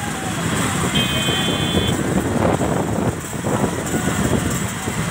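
Road traffic running, with a vehicle horn sounding once for about a second, about a second in.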